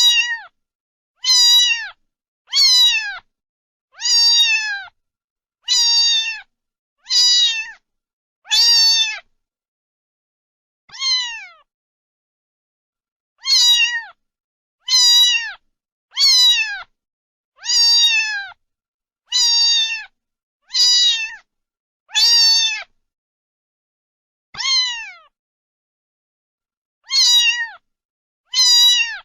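A cat meowing over and over, about eighteen short meows each falling in pitch, mostly spaced a little over a second apart, with two longer pauses.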